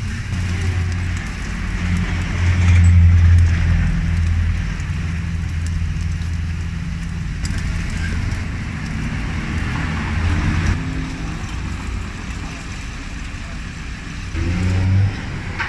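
A motor vehicle's engine running close by, a low hum that swells about three seconds in and again near the end. Under it is the steady sizzle of meat frying in oil on a street-stall comal, with a few light scrapes and clicks of a metal spatula.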